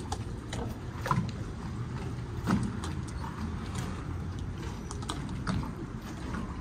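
Marina ambience beside a moored yacht: a steady low rumble with scattered light clicks and knocks, several of them a little louder, about a second and two and a half seconds in.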